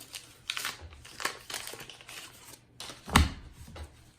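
Foil trading-card pack wrapper crinkling and tearing as it is opened by hand, in a run of short crackles, with one louder thump about three seconds in.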